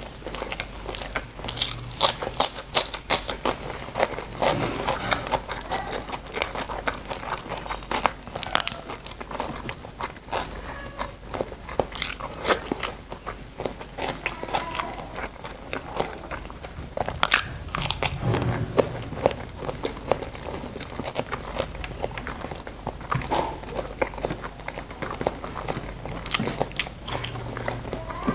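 A person chewing and crunching food: a dense run of sharp crunches and wet mouth clicks, loudest about two to three seconds in.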